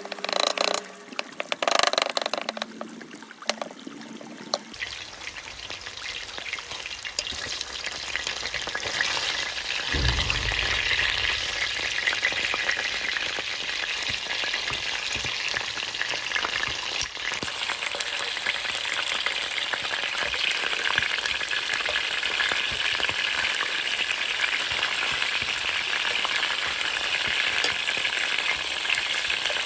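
Food frying in a pan: a few knocks and clinks in the first seconds, then a steady sizzle that grows louder and holds.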